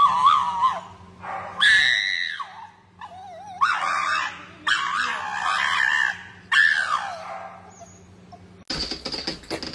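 Dog whining and howling in five high, wavering calls, each about a second long, with short gaps between them. About a second before the end the sound cuts to a faint rattle with light ticks.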